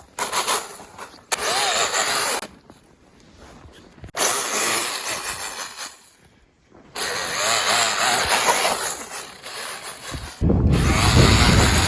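RC snowmobile's brushless electric motor (Tekin 2250kv) and track running in bursts, whirring with the throttle and cutting off abruptly several times with short quiet gaps. About ten seconds in, a louder, deeper rumble takes over.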